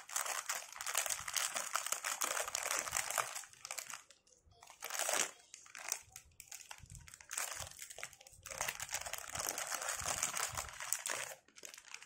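Clear plastic packaging crinkling as hands open and rummage in a bag of stationery. It comes in three spells: most of the first four seconds, briefly around five seconds, and again from about eight and a half to eleven and a half seconds.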